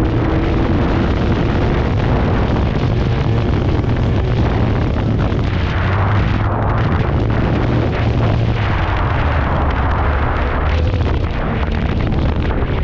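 Snowmobile's two-stroke engine running hard and steadily under load, with a loud, dense rushing noise over it.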